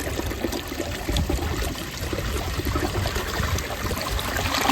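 2005 Crane Plumbing Atlas toilet flushing, with water rushing steadily through the bowl as it carries a dish towel down the drain.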